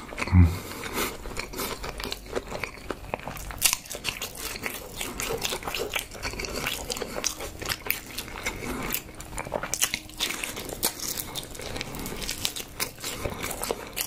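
Close-miked chewing of raw fish: a steady run of wet, sharp mouth clicks and smacks. A short low falling hum of the voice near the start.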